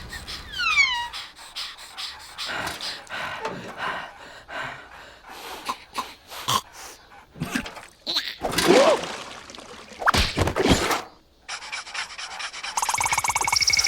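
Cartoon character vocal noises, mostly breathy panting and gasping, mixed with comic sound effects. Quick falling whistle-like slides come near the start, and a steady buzzing effect begins near the end.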